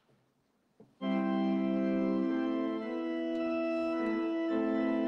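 Organ postlude beginning about a second in, after a moment of near silence: held chords that change every second or so.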